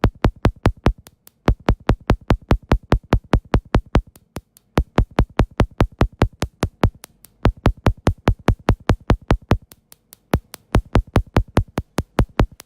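Electronic dance music driven by a drum-machine kick beat, about four hits a second, with a few short breaks. The music cuts off abruptly at the end.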